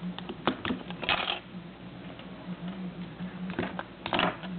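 Small plastic clicks and two brief scrapes from a Nokia N79 mobile phone being taken apart by hand, its back cover and battery pulled out to switch it off because the keypad has failed.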